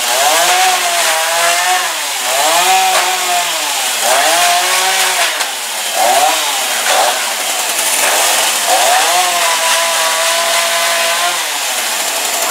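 Black Max gas chainsaw with a 16-inch bar cutting into cardboard-and-plastic toy boxes. Its two-stroke engine revs up and down about every second or two, then holds at high revs for a few seconds before dropping off near the end.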